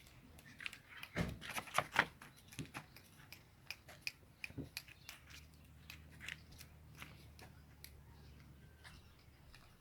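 A dog chewing food: irregular crunches and clicks, loudest and thickest in the first couple of seconds, then sparser.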